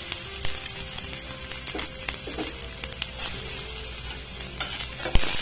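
Chopped onions and green chillies sizzling in hot oil in a stainless steel pan, a steady frying hiss. There is a sharp click near the end.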